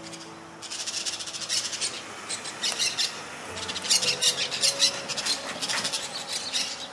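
A flock of small wild parakeets squawking in rapid, high-pitched chattering calls, starting about half a second in and loudest in the second half. The birds appear to be yellow-chevroned parakeets.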